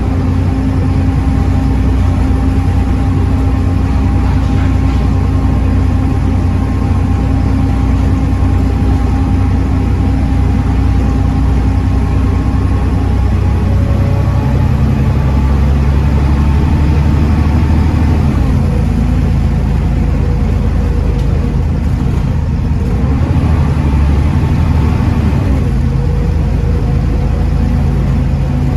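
Volvo D7C 7.3-litre diesel engine of a Volvo B7TL double-decker bus running steadily under way, driving through a ZF Ecomat automatic gearbox. The engine note changes pitch about halfway through.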